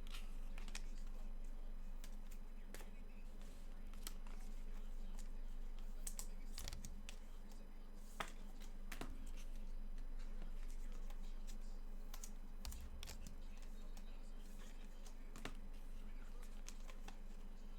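Scattered light clicks and taps at an irregular pace, like small hand work at a desk, over a steady low hum.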